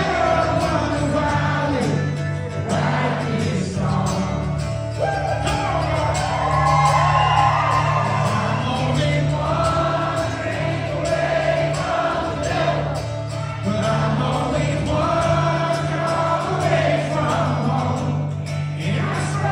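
A man singing live into a microphone, accompanied by an acoustic guitar.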